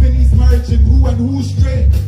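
Live band music: drums and electric guitars with a heavy bass, under a male vocalist's voice on a microphone.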